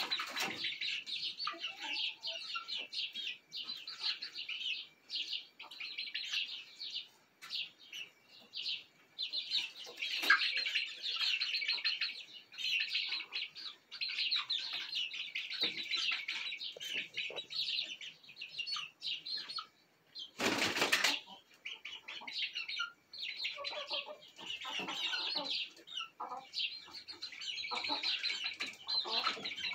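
A flock of young chickens peeping and chirping continuously as they settle on a roost. About two-thirds of the way through there is one short, loud flurry of wing-flapping as a bird flutters off the perch.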